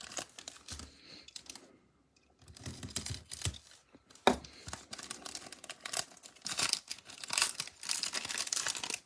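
A trading-card pack wrapper being torn open and crinkled by hand, a dense crackle with sharp snaps that starts about two and a half seconds in and grows busier near the end.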